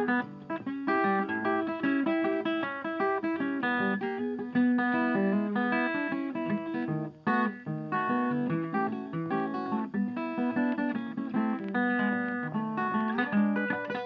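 Background music: a plucked acoustic guitar playing a steady run of short notes.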